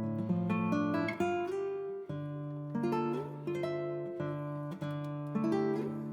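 Background music: acoustic guitar with plucked notes and strummed chords.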